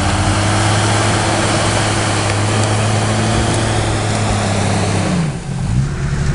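Jeep Cherokee XJ engine holding steady revs as it pulls through deep mud, then dropping off about five seconds in. After a short break, a different engine note takes over near the end.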